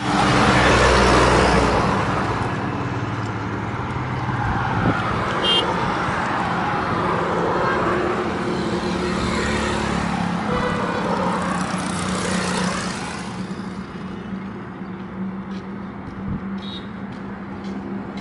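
Mixed highway traffic passing close: engines and tyre noise of trucks, pickups and a state-transport bus, loudest in the first two seconds and easing off after about 13 seconds. Short horn toots sound about five seconds in and again near the end.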